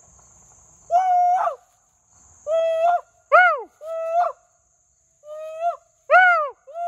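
A series of about seven loud, owl-like hooting calls, each holding or rising in pitch and then sliding down, in an irregular run.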